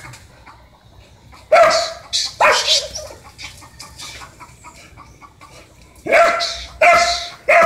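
A dog barking at a ferret: two sharp barks about a second and a half in, then three more near the end.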